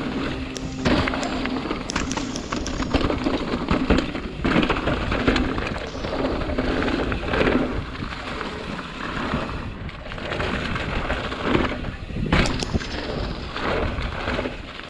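Mountain bike riding fast down a rocky dirt trail strewn with leaves: a steady rush of tyre and wind noise broken by frequent knocks and rattles as the bike hits rocks and roots.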